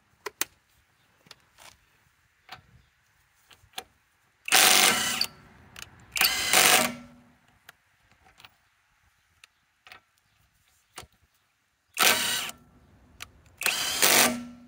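Impact wrench hammering on car lug nuts in four short bursts, each under a second, coming in two pairs: one pair about four and a half and six seconds in, the other about twelve and thirteen and a half seconds in. The wrench breaks the lug nuts loose. Faint clicks between the bursts.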